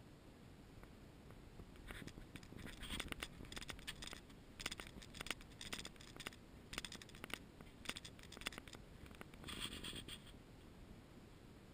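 Footsteps on artificial turf: a run of faint, scratchy crunches from about two seconds in, growing louder and ending with a brief rustle close by at about ten seconds.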